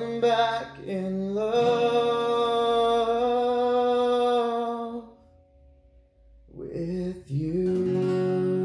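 Man singing long, wordless held notes over an acoustic guitar: one note for about five seconds, a short break, then a second held note.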